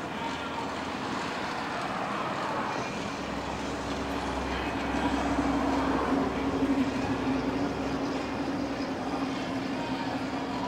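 Road traffic going past close by, a vehicle's steady hum and rumble swelling to its loudest about halfway through and then fading.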